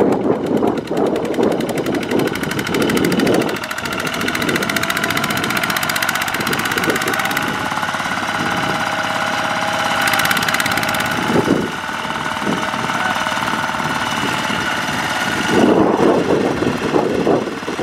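Single-cylinder diesel engines of two-wheel walking tractors running under load as they haul trailers loaded with rice sacks through mud. The note holds steady through the middle, with rougher noise at the start and near the end.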